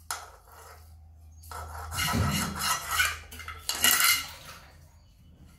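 Steel spoon scraping and clinking around the inside of a non-stick kadai pan, in several bouts of stirring, the loudest about two and four seconds in.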